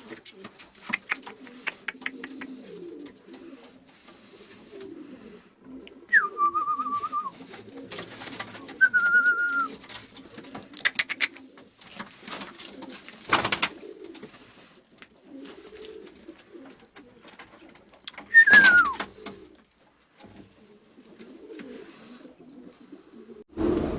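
Domestic pigeons cooing, with scattered clicks and short flutters. Three short, clear whistles cut through, the last one falling in pitch.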